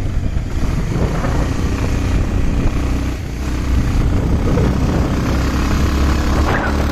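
Motorcycle running on the move, its engine under a heavy, steady wind rumble on the microphone.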